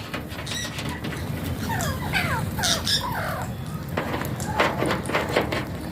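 Alexandrine parakeet calling: a run of short gliding chirps about two seconds in, then harsh squawks in the second half.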